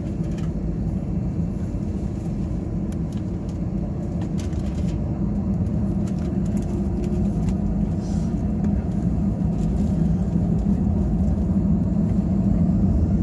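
Steady low cabin rumble of an Airbus A319 taxiing, its engines at low power, with a hum that slowly grows louder.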